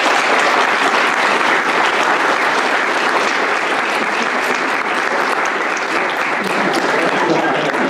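Audience applauding steadily, with one person clapping close by.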